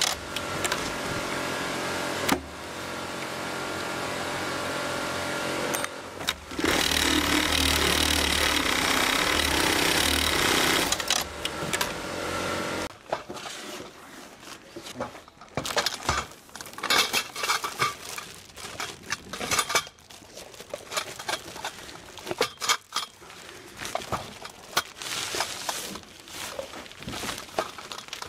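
Industrial sewing machine running fast, stitching a nylon webbing strap onto tent canopy fabric, louder for the first couple of seconds and again for about five seconds after a quieter spell. About halfway through it gives way to rustling plastic bags and light clicks and knocks of metal tent poles being packed by hand.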